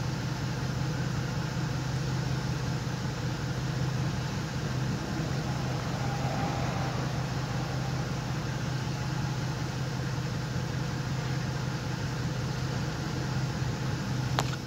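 A car idling, heard from inside the car: a steady low hum. One sharp click near the end.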